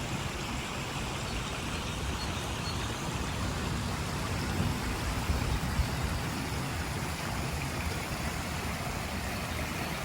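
A small stream running steadily, with a low, uneven rumble underneath.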